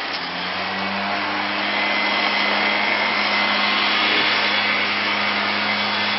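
Steady machine noise: a loud, even whir with a low hum, growing slightly louder over the first two seconds and then holding.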